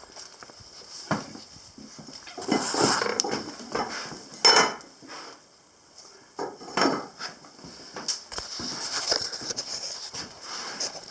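Irregular clinks, knocks and rustling of things being handled and moved about, with a short lull about halfway through.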